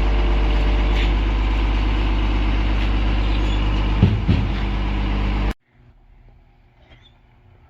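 Heavy vehicle engine running steadily, with a brief rise and shift in pitch about four seconds in. The sound cuts off abruptly about five and a half seconds in, leaving only faint background noise.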